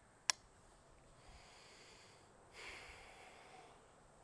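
A single sharp click from the .35 PCP air rifle's action about a third of a second in, then a person's short breath out near the middle, lasting about a second.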